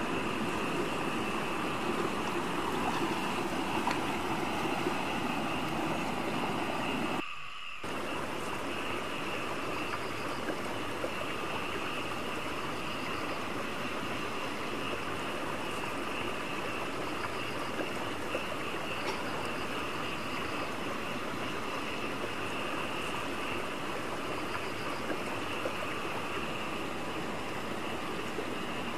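Steady rush of stream water over rocks, with a steady high-pitched drone above it. The sound drops out briefly about seven seconds in.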